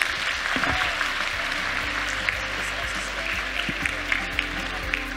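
Audience applauding, with background music starting up under the clapping about a second and a half in.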